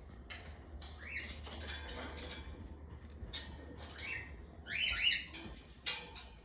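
Hen macaw making soft, short rising chirps, several times, amid scattered clicks and scrapes; she is broody, treating the dummy eggs in her cage as her own.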